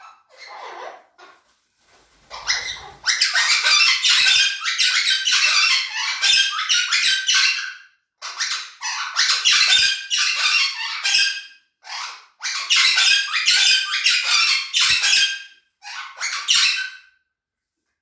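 Cuban Amazon parrots calling loudly: long runs of rapid, harsh calls lasting several seconds each, with brief pauses between them, after a few softer calls at the start.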